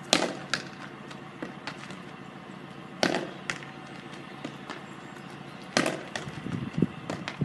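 Wooden hurley striking a sliotar (hurling ball) against a wall: three sharp cracks about three seconds apart, each followed about half a second later by a fainter knock, with a few lighter knocks near the end.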